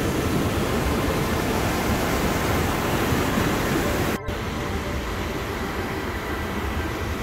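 Upper Jordan River in spring flood: a steady, loud rush of whitewater over rocks. About four seconds in the sound breaks off for an instant and comes back a little quieter, as water pours over a flooded low bridge.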